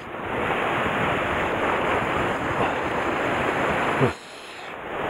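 Sea surf washing and breaking against the rocks just below, a steady rushing noise. About four seconds in there is a short bump, and the rush drops away for under a second before returning.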